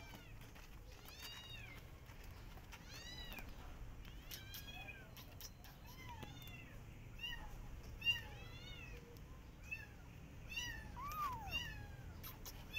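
Young kitten meowing over and over in short, high mews that rise and fall, about one a second, coming quicker after the halfway point.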